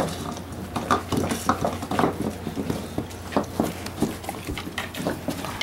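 Several dogs licking and gobbling ice cream from bowls, the bowls knocking and scraping on the tile floor in quick, irregular clicks and clatter.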